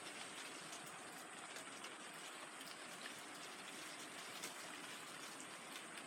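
Light rain falling: a faint, steady hiss with scattered ticks of single drops.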